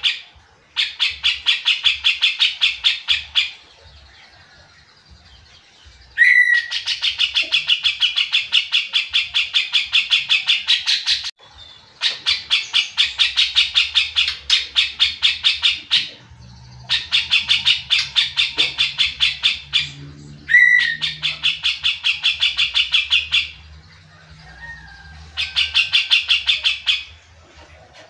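Grey-cheeked bulbul (cucak jenggot) in full song: a series of loud, fast chattering phrases, each a rapid run of sharp repeated notes lasting two to five seconds, with short pauses between. Two of the phrases open with a single sharp whip-like note.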